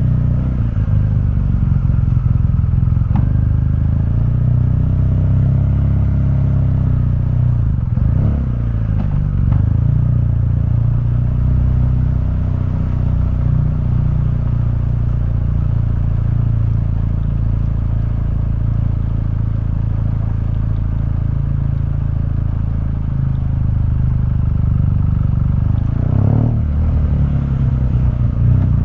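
2015 BMW R1200GS boxer-twin engine running through its stock exhaust while riding, a steady low engine note whose pitch eases and changes briefly about eight seconds in and again near the end.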